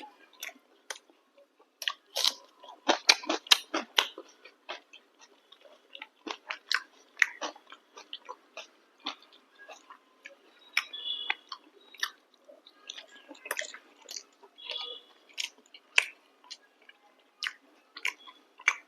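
A person chewing and biting chicken curry with chapati close to the microphone: wet mouth clicks and smacks, with a quick run of them about two to four seconds in, then scattered through the rest.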